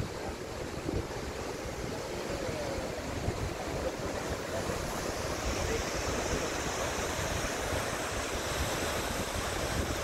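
Steady rushing roar of the Athirappilly waterfall, with wind buffeting the microphone; the hiss of the water grows a little brighter about halfway through.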